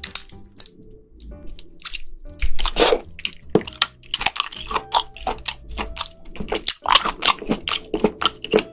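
Wet squelching and sticky smacking of raw long-arm octopus tentacles being pulled up off a wooden cutting board, picked up close to the microphones as a string of irregular clicks and squishes.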